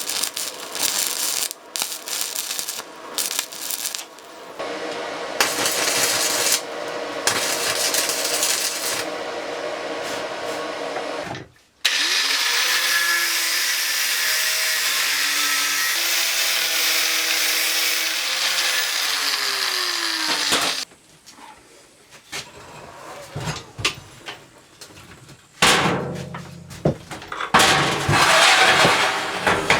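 Power-tool noise in a metal workshop, heard in several short clips with abrupt cuts. The middle stretch is a steady, loud machine noise with tones that step down in pitch, and the end has scattered knocks and short louder bursts.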